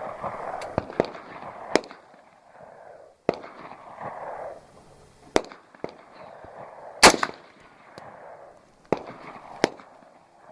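Rifle gunfire: about eight single shots at irregular spacing, the loudest about seven seconds in. The shots miss the Tannerite target, so there is no explosion.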